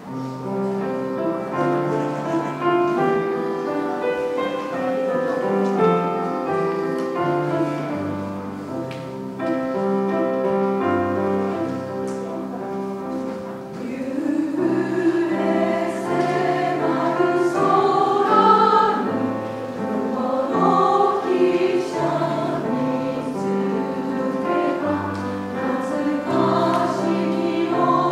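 Grand piano playing a slow introduction, then a women's choir comes in about halfway through and sings with the piano accompanying.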